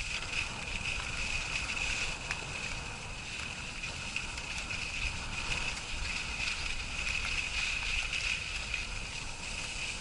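Steady hiss and scrape of skis sliding over snow on a downhill run, with wind rumbling on the camera microphone.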